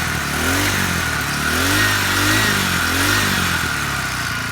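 Small 49cc four-stroke motorized-bicycle engine with belt drive, revved up and back down several times in quick blips, revving out smoothly.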